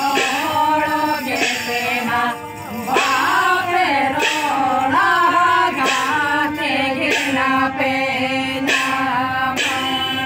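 Santali folk song sung to a hand-pumped harmonium, the voice line rising and falling over the harmonium's steady held notes.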